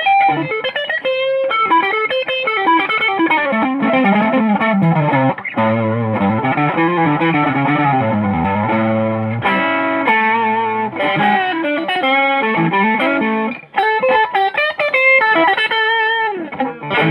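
Electric guitar played through an effects unit with some distortion: melodic lead lines with frequent string bends and vibrato, and a short break in the playing about three-quarters of the way through.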